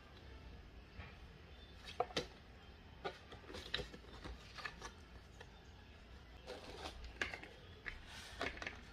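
Eyeshadow palette packaging handled close to the microphone: faint, irregular taps, clicks and scraping rustles of cardboard and plastic, a few sharper ones about two seconds in and again near the end.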